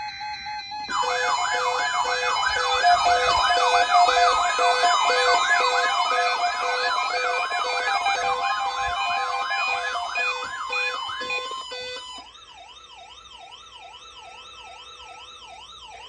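Several weather alert radios sound their electronic warbling siren alarms together, set off by the NOAA Weather Radio weekly warning alarm test. A steady tone plays for about the first second. Then the overlapping rising-and-falling alarms, about three sweeps a second, run until about twelve seconds in, when most stop and one quieter warble carries on.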